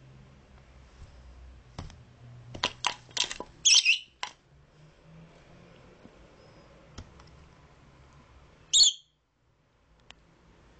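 Red lory giving two short, loud, high-pitched calls, one about four seconds in and another near the end, after a quick run of sharp clicks.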